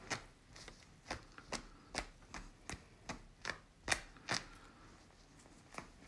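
Hands working through the feathers of a dead tawny owl: a quick run of short, crisp rustles, about two or three a second, that stops after about four seconds, with one more rustle near the end.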